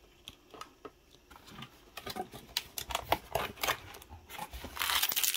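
Handling of a cardboard box and the packaging inside it: scattered light clicks and knocks, busier from about two seconds in, with a short scraping rustle near the end.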